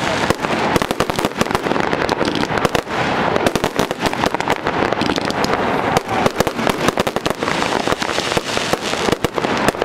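Fireworks display: aerial shells and comets bursting in a dense, unbroken barrage of sharp bangs and pops, many a second.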